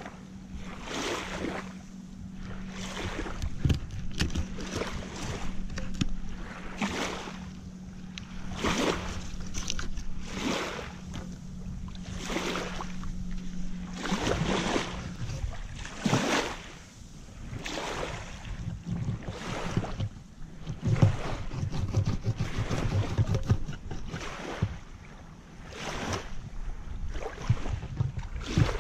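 Small waves washing against the shore with wind, in swells that come every second or two. A steady low hum runs beneath and stops about halfway.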